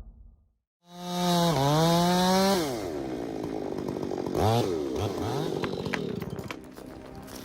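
A chainsaw comes in about a second in, running at high revs, its pitch dipping and rising again. It then falls to a lower, rougher run, with a quick rev near the middle.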